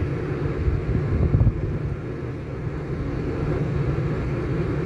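Steady low rumble of a moving vehicle on the road: engine, tyre and wind noise, with a brief louder bump about a second and a half in.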